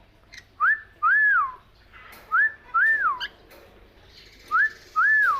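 Whistling: a two-note phrase, a short rising note and then a longer one that rises, holds and falls, repeated three times at even spacing.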